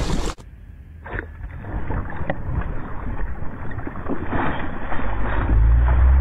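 A large fish thrashing at the surface of a pond, water splashing and slapping irregularly and growing louder, with a low rumble near the end.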